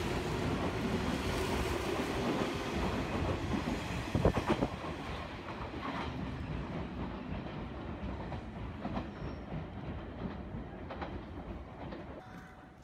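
Hanshin 1000 series electric train pulling away from the platform, its running noise close at first, then fading as it draws off down the line. Its wheels clack over the rail joints, loudest in a cluster of clacks about four seconds in.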